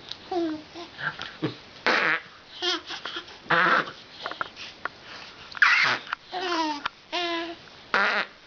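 A baby babbling and giggling in a string of short bursts: wavering squeals alternate with breathy laughs.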